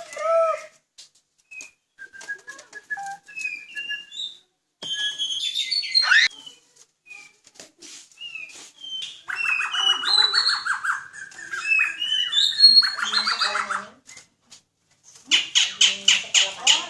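Pet songbird singing: a varied run of short chirps and whistled notes, breaking into long rapid rattling trills about nine seconds in and again near the end, after a brief pause.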